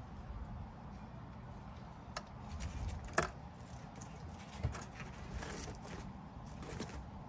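A few short clicks and taps of metal kitchen tongs picking up food from a foil tray and plate, the loudest about three seconds in, over a low steady rumble.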